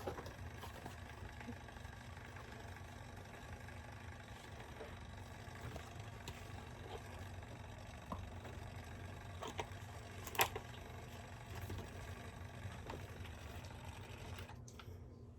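Nespresso electric milk frother running with a faint steady motor whir as it whisks almond milk. A couple of light clicks come about ten seconds in.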